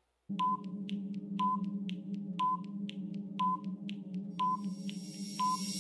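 Quiz countdown timer sound effect: a short tick-and-beep about once a second over a steady low hum. About four seconds in, a high thin tone and a rising hiss come in as the count runs out.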